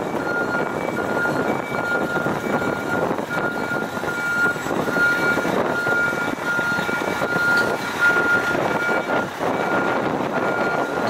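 Mercedes-Benz Actros fire tanker's diesel engine running as the heavy truck pulls slowly away, with an electronic beep repeating about one and a half times a second over it.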